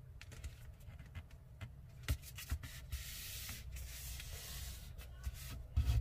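A sheet of paper rustling and sliding on a tabletop as hands fold it over and press the crease flat, with a few soft taps.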